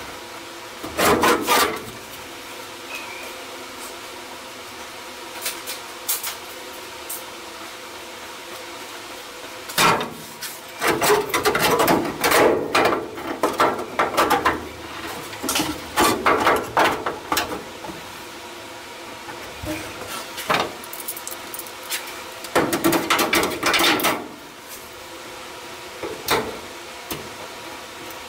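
A thin steel repair panel rattling and scraping in bursts as it is pushed and test-fitted by hand into the rusted lower A-pillar, over a steady background hum.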